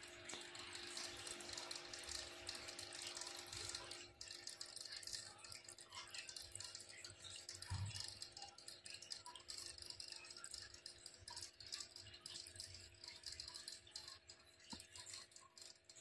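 Faint fizzing crackle of aquarium water and fine bubbles, over a steady low hum from the tank's pump or filter. A soft thump comes about eight seconds in.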